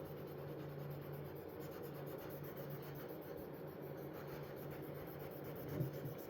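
Faint, steady rubbing of a cloth working metal polish over a steel knife blade to scrub off surface rust.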